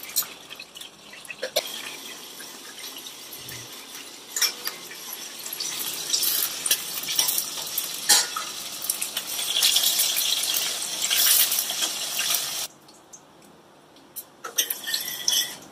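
Mustard seeds, urad dal and chana dal sizzling and crackling in hot oil in a steel pot, a tempering. The sizzle grows louder about halfway through and stops abruptly near the end, followed by a few clinks of the ladle against the pot.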